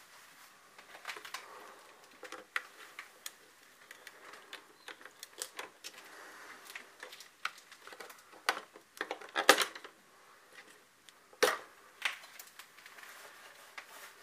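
Hands working at an old electrical fuse box: a run of irregular small clicks and knocks from switches, wires and plastic fittings, with two louder snaps about nine and a half and eleven and a half seconds in.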